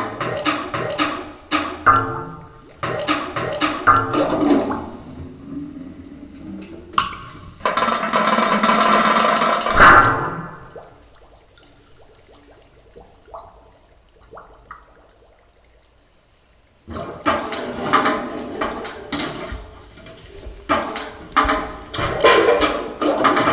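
Live contemporary chamber music for strings, piano and percussion: sharp struck and plucked notes, then a stretch of steady noise lasting a couple of seconds, a quiet passage with only a few faint sounds, and dense repeated attacks that start again at about seventeen seconds in.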